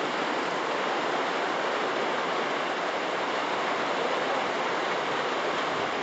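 Heavy rain pouring and floodwater rushing along a street: a steady, even rush of water with no breaks.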